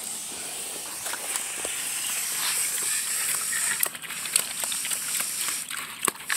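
Several pigs eating feed from a pan: steady noisy munching and rooting, with scattered short clicks.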